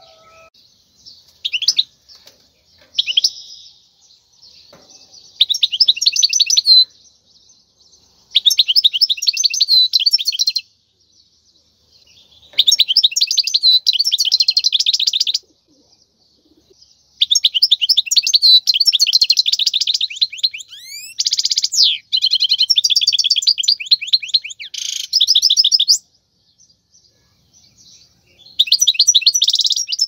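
European goldfinch singing: rapid, tinkling twitters and trills in phrases a second to a few seconds long, separated by short pauses, with a longer, nearly unbroken run of song in the second half.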